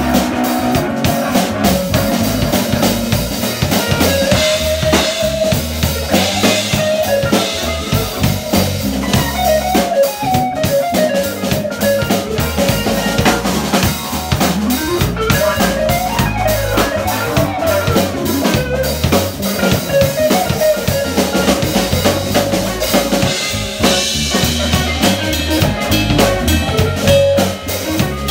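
Live band playing an instrumental: drum kit keeping the beat under electric bass, with a wandering electric guitar melody line over keyboard.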